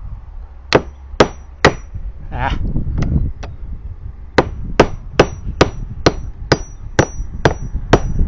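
Carpenter's hammer driving galvanized nails through PVC trim board into the deck: a run of sharp blows about two a second, each with a brief metallic ring. About two seconds in the hammering pauses for a short scraping sound, then resumes steadily.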